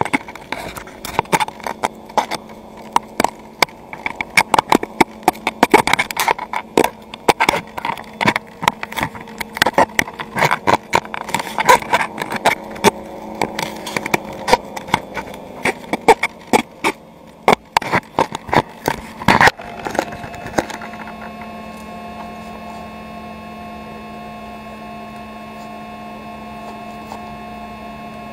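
Irregular knocks, taps and rubbing as fingers handle the camera right at its microphone for about twenty seconds. The handling stops suddenly and gives way to a steady electrical hum with a few held tones.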